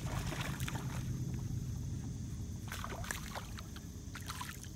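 A small hooked bass splashing at the water's surface as it is reeled in toward the boat, in short bursts near the start, about three seconds in and again near the end, over a steady low rumble.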